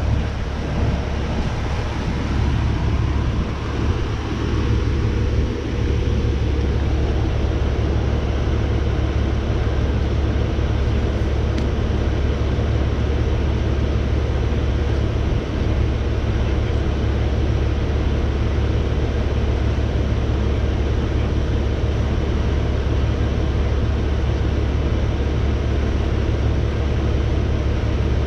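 Fire engine idling: a steady low drone that holds the same pitch throughout.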